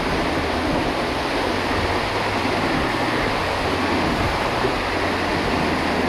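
Waterfall rushing steadily into its pool: a continuous, even roar of falling water.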